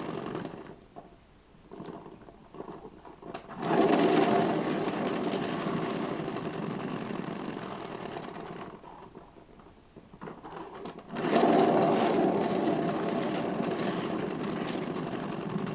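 Motorised paint-pouring spinner running. It winds down and stops early, starts again suddenly about three and a half seconds in, slows and stops around nine seconds, then starts again about eleven seconds in. The spinner is a clunky one that is due for replacement.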